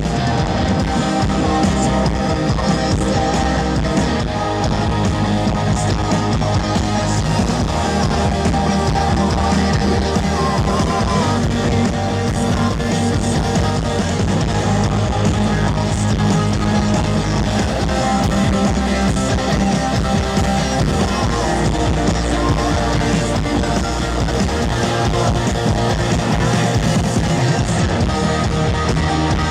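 Rock music played live, led by guitar, with no singing: an instrumental stretch of the song.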